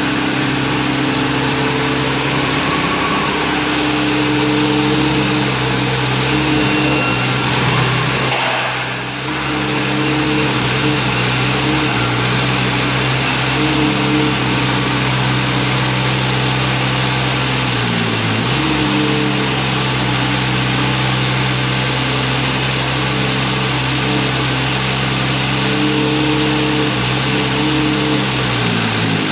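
Engine of a remote-controlled tracked demolition machine running steadily with a hiss as its hydraulic boom moves. The engine note sags briefly three times: about nine seconds in, around eighteen seconds, and near the end.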